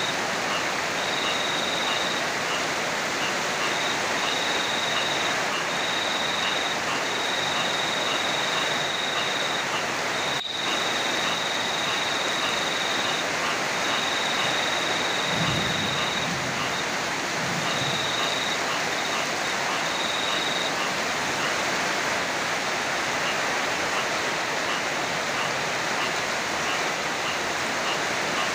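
Heavy rain pouring steadily, a dense even hiss. A high thin whine comes and goes throughout, and a short low rumble of distant thunder comes a little past halfway.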